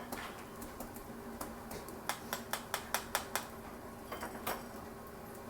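Tableware clinking at a meal: a quick run of about seven light clicks of metal or china, with a few scattered ones around it.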